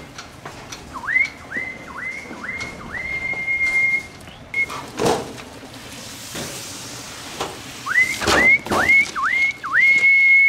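A person whistling to call a group of mink to follow. There are two runs of short swooping whistles, each dipping and rising back to the same high note, and each run ends on a longer held note. A thump sounds between the two runs.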